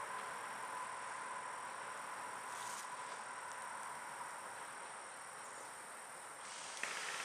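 Steady high-pitched insect chorus trilling over faint outdoor hiss, with a short rustle near the end.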